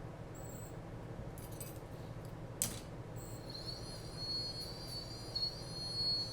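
Chaos 3115 brushless drone motor spinning on the bench: a steady low hum, one click near the middle, then a high whine from about halfway that bends up and down as the speed changes. It runs smooth, with no noise from inside the motor; any extra sound is put down to the offset retaining clip on the shaft.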